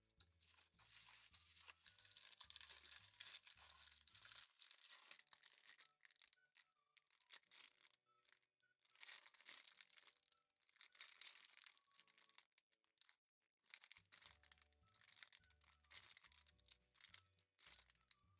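Faint crinkling, rustling and tearing of packaging being unwrapped, with short pauses, over soft background music whose bass line drops out for the middle stretch.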